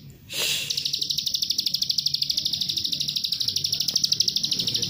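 Plain prinia (ciblek sawah) singing its rapid 'nembak' trill, a long, dry, even run of well over a dozen high notes a second. The trill picks up again under a second in and runs on without a break.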